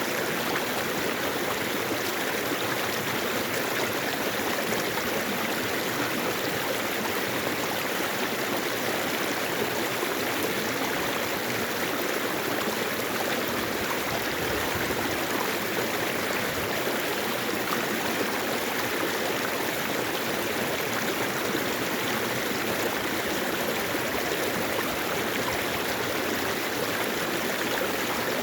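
Mountain stream flowing over rocks: a steady, even rushing and babbling of water.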